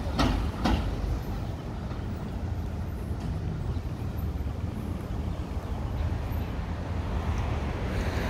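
Road traffic noise, a steady low rumble, with two sharp knocks in quick succession within the first second.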